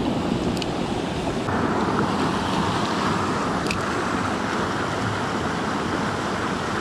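Steady rush of a fast mountain creek running over rocks and small cascades. It takes on a brighter, hissier tone about a second and a half in.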